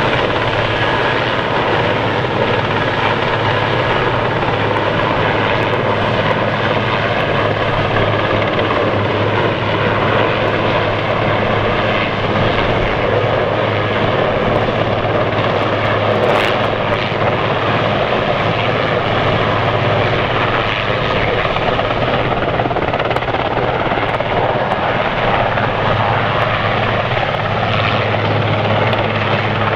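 Loud, steady engine drone with a constant low hum, unchanging throughout.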